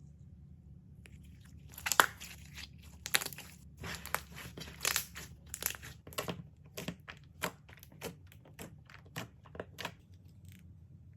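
Crunchy slime being squeezed and pressed by hand, giving a run of sharp crackles and pops. It starts about two seconds in, is loudest right away, and thins to scattered pops before stopping near the end.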